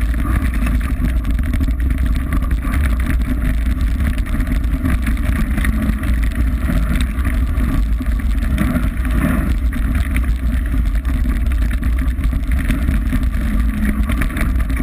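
Mountain bike descending fast over loose gravel: steady heavy wind buffeting on the microphone with a deep rumble, over a continuous clatter of tyres and bike rattling on stones.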